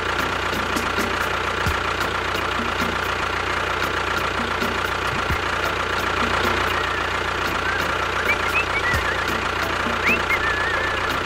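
A small engine running steadily, with a fine regular knocking rhythm. A few short, high chirps sound near the end.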